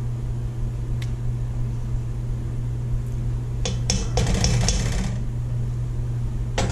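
A plastic slotted spoon scrapes and clicks against a pot and container while solid white shortening is scooped into the oil, in a burst of clatter about four seconds in. A steady low hum runs underneath.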